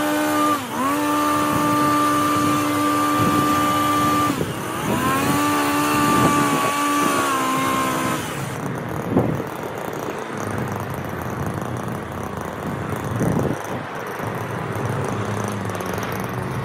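Stihl HS 82T two-stroke petrol hedge trimmer running at full revs while cutting, played at double speed. Its pitch dips briefly about half a second in and again around four seconds, and the engine note stops a little after eight seconds. A quieter rough noise with a few short knocks follows.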